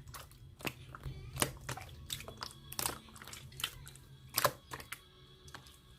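Slime being squished and pressed by hand, making irregular sticky clicks and pops, about two or three a second, over a low steady hum.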